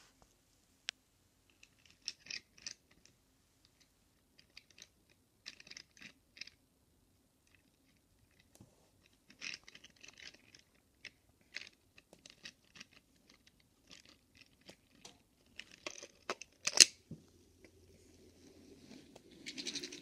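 A toy car being pushed by hand along a hard ledge: short bursts of scratchy rolling and scraping from its wheels, with small taps and handling clicks. The loudest is a sharp click about 17 seconds in.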